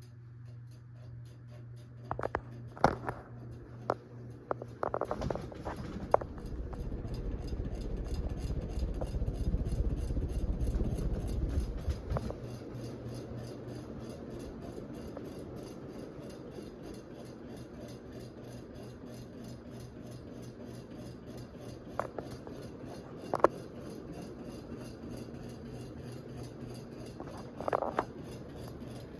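A Hampton Bay Claret 52-inch ceiling fan running with a steady motor hum, scattered clicks and knocks, and a low rumble that swells from about six to twelve seconds in. It is wobbling, which the owner blames on a ceiling canopy not made to hold so heavy a fan.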